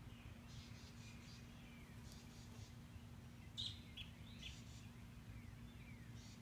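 Faint songbird chirping: short high notes in quick clusters of three or four, repeating about once a second, with a few louder notes about halfway through. A steady low hum runs underneath.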